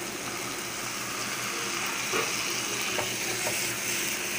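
Green-pea and onion-tomato masala with a little water added, sizzling steadily in a pan while a wooden spatula stirs it, with a few light scrapes and taps of the spatula.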